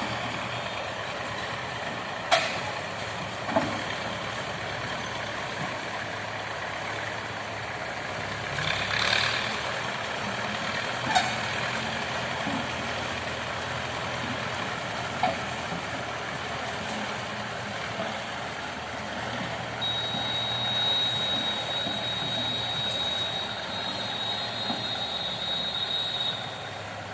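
Road roller's diesel engine running steadily, with a few sharp clicks or knocks and a brief hiss about nine seconds in. A steady high-pitched tone joins over the last several seconds.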